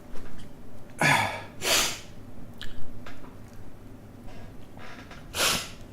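A man's short, breathy sniffs and snorts through the nose, about four in a few seconds, with a couple of faint clicks between them, as he works toward another sneeze.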